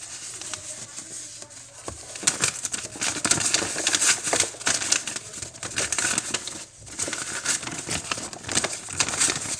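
Crinkling and rustling of paper or plastic packaging being handled, in quick irregular crackles from about two seconds in.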